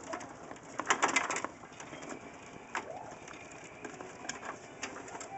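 Computer cables and connectors being handled and fitted inside a PC case: scattered clicks and rustles, with a louder rattling scrape about a second in.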